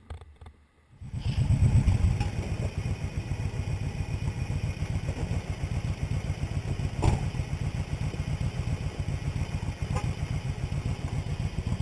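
Motorcycle engine starting about a second in, loudest just after it catches, then settling into a steady idle with a fast low pulse. A sharp click about seven seconds in.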